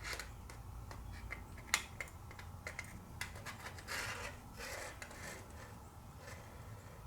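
Quiet handling sounds: scattered small clicks and rubbing, with one sharp click a little under two seconds in and brief scraping around the four- and five-second marks, over a steady low hum.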